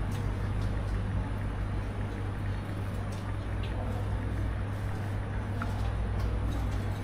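Steady low rumbling hum of background ambience, with a few faint clicks.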